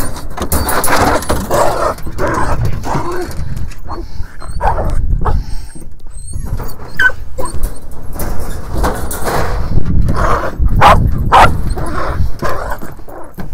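Miniature Australian Shepherds barking in short bursts as they are let out of a wire dog crate, with the metal crate door rattling as it is opened.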